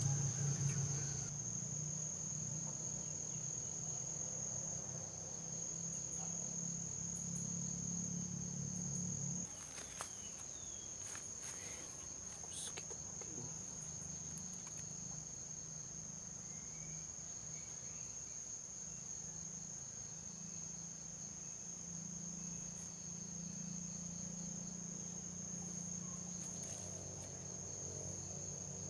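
Insects shrilling in one steady, continuous high tone over a low rumble that eases off about nine seconds in, with a few faint clicks a little after that.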